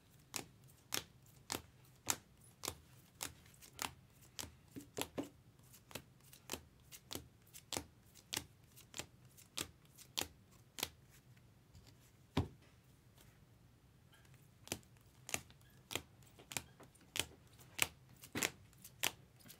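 Trading cards being handled one after another, each making a sharp click or snap, about two a second, with a pause of about two seconds a little past the middle.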